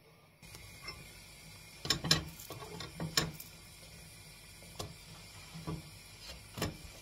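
Spatula scraping and tapping against a nonstick frying pan as a thin pancake is loosened and turned over: several sharp clicks and scrapes, the loudest about two and three seconds in, over a faint steady hiss.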